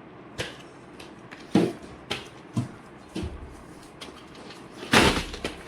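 Boxed fireworks being handled and set down: several light knocks, then a louder rustling knock near the end.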